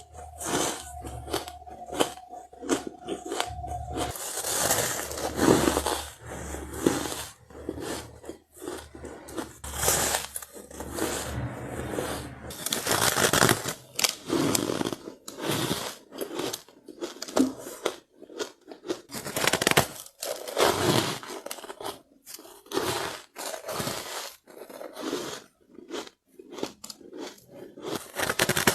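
Soft powdery ice being bitten and chewed close to the microphone: a dense, irregular run of crunches with short pauses between bites.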